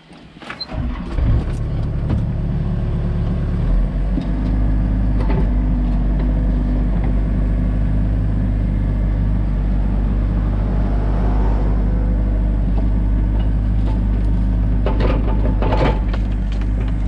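Komatsu excavator's diesel engine starting up, then running steadily and revving higher from about four seconds in. A few short knocks and clanks sound over the engine, the loudest near the end.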